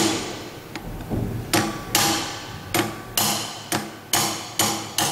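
Hammer blows on a steel drift rod, driving the cross and bearing cap of a drive-shaft universal joint out of its yoke from the inside: about ten sharp metallic strikes, roughly two a second, some with a brief ring.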